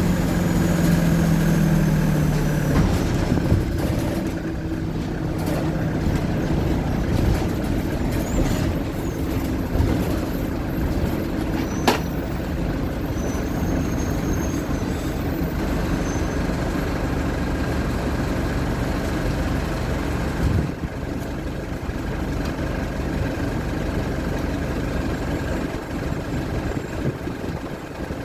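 Mercedes-Benz OF-1722M bus's diesel engine running, pitched higher for the first three seconds or so and then lower and steady. A sharp click sounds about twelve seconds in.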